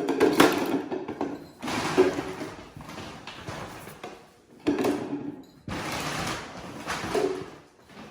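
Plastic storage containers with bamboo lids being moved and set in place, in four or so bursts of scraping and knocking.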